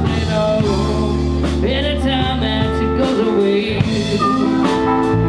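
Live band playing a slow blues-rock song, with guitar, bass and a drum kit keeping a steady beat.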